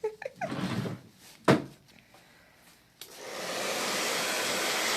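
A sharp knock about a second and a half in, then a handheld hair dryer switched on about three seconds in, blowing with a steady even rush.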